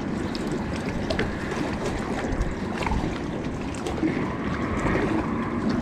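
Wind blowing on the microphone with small waves lapping against the side of the boat, a steady, even rush with a few faint ticks.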